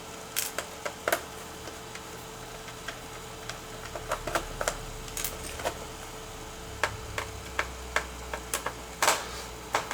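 Irregular small clicks and taps of plastic and metal parts being handled while an opened laptop is taken apart, over a faint steady hum.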